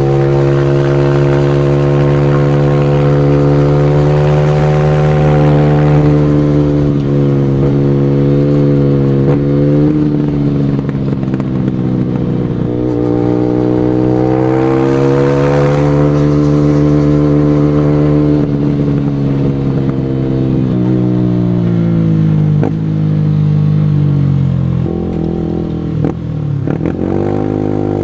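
Single-cylinder motorcycle engine ridden hard, held at high revs and then dropping and climbing again several times as the throttle is closed and reopened, with a deep drop near the end before it revs back up.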